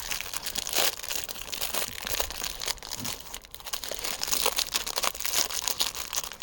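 Packet of Flammirera firelighter cubes being torn open by hand: a dense, irregular run of crinkling and tearing from the stiff wrapper, which is slow to give.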